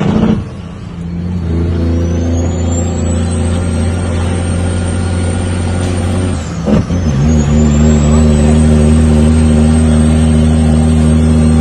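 Heavy diesel dump truck heard from inside the cab, pulling through the gears. A high turbo whistle climbs as the engine builds power. Near the start and again about six and a half seconds in, the power drops off briefly for a gear change, then the engine and whistle build up again.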